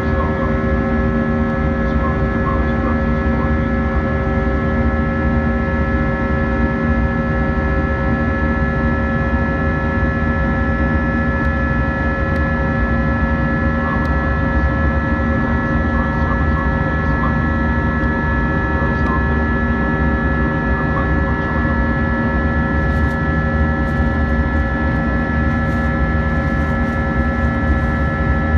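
Airbus A320-232's IAE V2500 turbofan engines and airflow during the climb after takeoff, heard inside the cabin: a steady drone with several steady whining tones over it.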